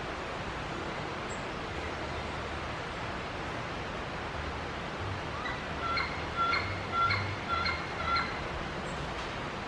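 A bird giving a series of about six short, clear calls a little past the middle, over a steady rushing background noise.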